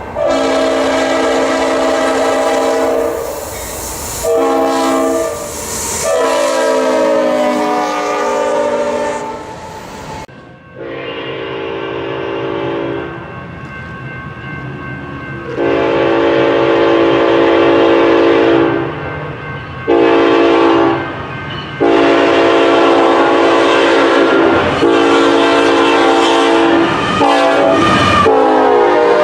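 Locomotive multi-chime air horn sounding loud chord blasts in two recordings. In the second it blows long, long, short, long, the grade-crossing signal, and the pitch drops near the end of the last blast as the train passes.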